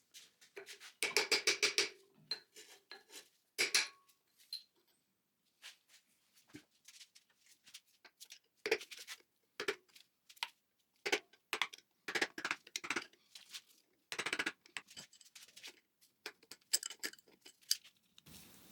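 Steel hand tools clinking and knocking against the brake drum and hub parts of a VW Beetle front beam being dismantled, in irregular bursts with a quick run of clicks about a second in.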